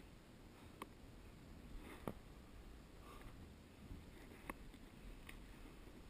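Near silence with four small sharp clicks spread through, from a climber's hands and gear knocking on the rock while scrambling.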